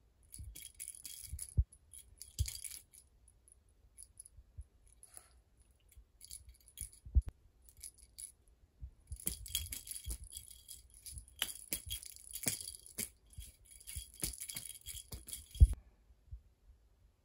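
Cat teaser toy shaken in irregular bursts of high, jingly rattling, with a few dull thumps, the loudest near the end.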